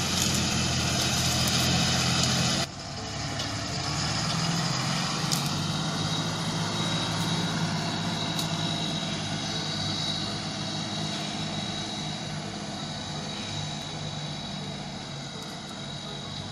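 Heavy Ashok Leyland 4x4 truck's diesel engine running as it drives over rough, sandy scrub ground. The sound drops abruptly a little under three seconds in, then slowly fades as the truck moves away.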